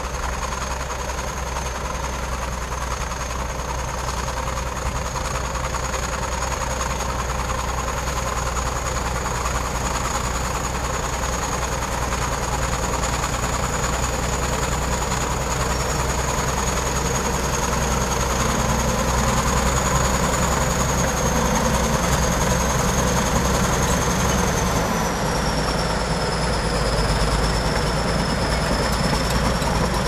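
Shantui SD22 crawler bulldozer's diesel engine running steadily under load as the dozer pushes dirt. A thin high whine sits over the engine noise and dips slightly in pitch near the end.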